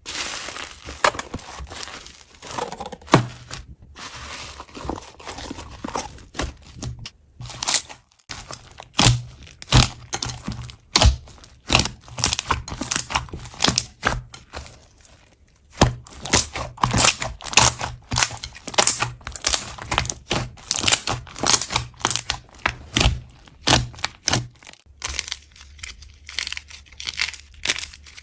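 Slime being squeezed and poked by hand, giving irregular sharp crackling pops and clicks, several a second, broken by a few short gaps.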